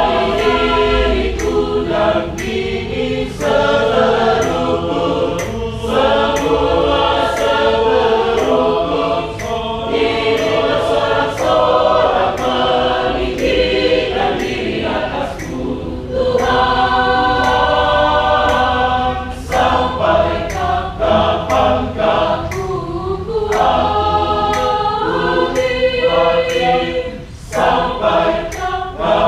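Choir singing an Indonesian Christian song in rehearsal, many voices together in phrases with brief breaks between them.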